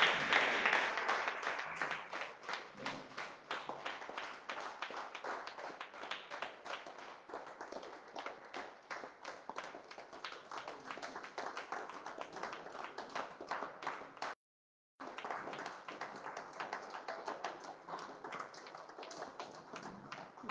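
Congregation clapping and applauding in praise: loud at first, then settling into lighter, scattered hand claps that go on steadily. The sound cuts out for about half a second about two-thirds of the way through.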